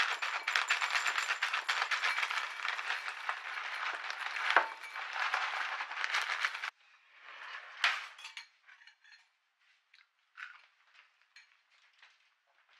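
Dry cereal clusters poured from a plastic bag into a ceramic bowl: a dense rattling of pieces against the bowl for about six and a half seconds that stops abruptly. Then a few scattered light clicks, with one sharper click about two-thirds of the way through.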